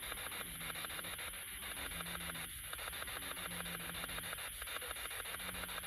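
Spirit box sweeping through radio stations: rapid, even clicking over static hiss, broken by short snatches of low sound from the stations it passes.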